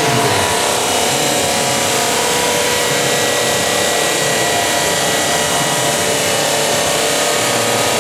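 Water-cooled diamond saw blade on a bridge saw cutting a mitre through a 3 cm Dekton slab, fed at 1.8 m/min. A steady, loud grinding hiss with constant tones running through it, unchanging throughout.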